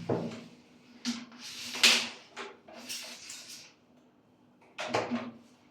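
A series of short knocks, scrapes and rattles from objects being handled, the loudest about two seconds in, over a faint steady low hum.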